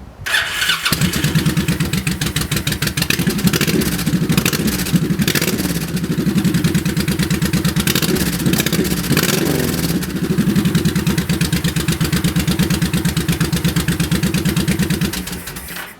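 Honda VTX 1800F V-twin with aftermarket BUB exhaust pipes being started, catching under a second in and running with an even pulsing beat. The throttle is revved a little a few times, and the engine is switched off near the end.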